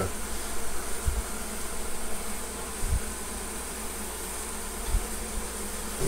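A colony of honey bees humming steadily in an opened hive cavity, with three soft low bumps spaced through it.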